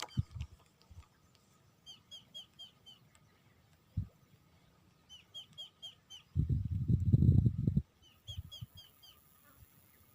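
A bird calling three times, each call a quick run of four or five short high chirps. A loud low rumble from about six to eight seconds in is the loudest sound, with a single knock a little before it.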